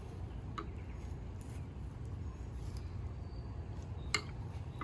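Quiet background noise: a steady low rumble with a few faint clicks, and a sharper click about four seconds in.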